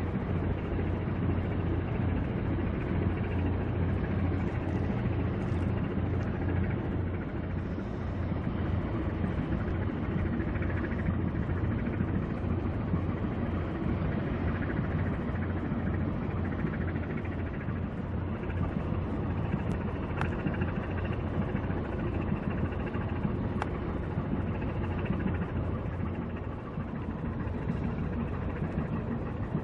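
Steady low rumble of a small coastal cargo ship's diesel engine running as the ship makes way.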